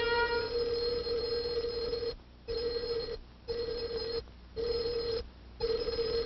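Telephone ringer sounding: one long steady ring for about two seconds, then four shorter rings with brief gaps between them.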